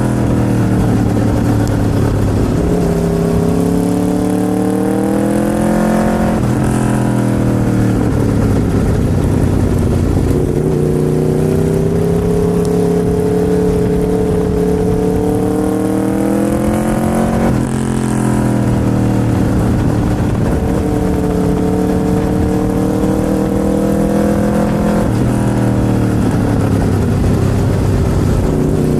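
Aprilia RSV4's V4 engine running under way on the road. The pitch climbs gradually and then drops sharply a few times, typical of riding through the gears.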